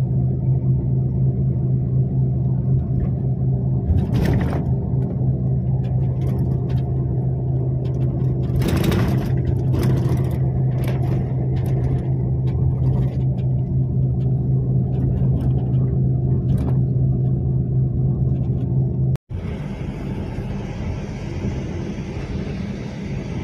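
Coach bus engine and road noise heard inside the moving cabin: a steady low hum and drone with a few brief rattles. About four seconds before the end it cuts off suddenly and gives way to a quieter drone with more tyre hiss.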